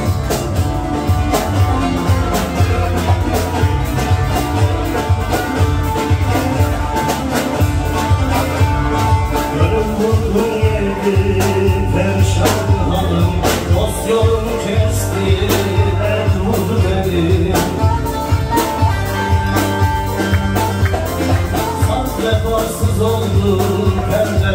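Live Turkish folk music from a small band, led by a short-neck bağlama played with fast, dense plucking over a steady bass and percussion beat.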